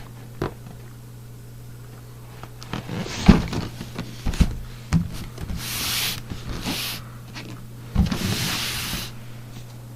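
A cardboard kit box being handled and turned over: several knocks and thumps, with two stretches of cardboard sliding and rubbing, the loudest about eight seconds in. A steady low hum runs underneath.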